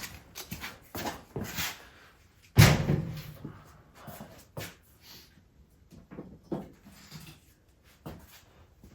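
Scattered knocks and clunks from gear being handled on a steel welding cart, with one loud metallic bang about two and a half seconds in.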